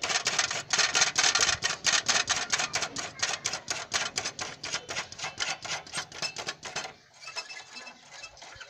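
Rapid, even metallic clicking, several clicks a second, as a nut on the rear brake of a Honda CD70 motorcycle is unscrewed. The clicking stops about seven seconds in.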